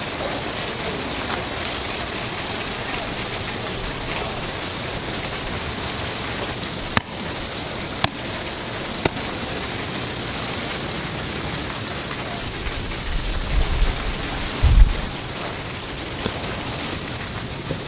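Steady rain-like watery hiss, with three sharp clicks about seven to nine seconds in and a few low thuds a little later.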